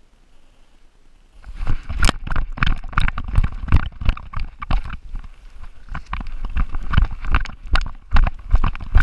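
A chocolate Labrador retriever running, heard through the camera strapped to its back. After about a second and a half of near quiet, rapid irregular thumps and knocks start from its running strides jolting the camera mount.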